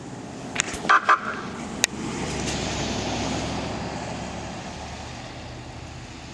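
Fire-rescue SUV driving past on a snow-covered road, its engine and tyre noise swelling to a peak about three seconds in and then fading as it moves away, with no siren running. About a second in, a few sharp clicks and two short, loud blips cut through.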